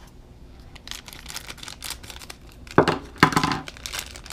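Foil blind bag crinkling as it is torn open by hand, with louder ripping rasps about three seconds in.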